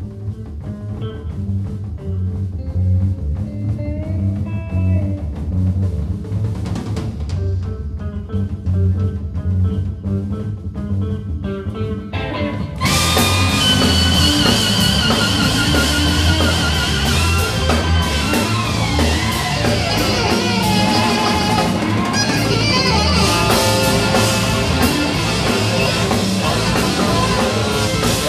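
A live band playing: drum kit, bass guitar and electric guitar with electronics. About halfway through, the music jumps suddenly from a sparser passage to full, loud playing, with wavering high tones over the top.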